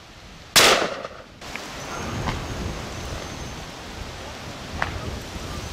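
A single close shotgun shot about half a second in, dying away over most of a second, followed by a couple of much fainter cracks of shots further off.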